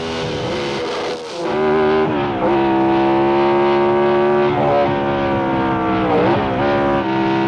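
A 1960s racing car engine running hard at high revs. Its note holds steady, dips sharply and climbs back twice, about two and six seconds in.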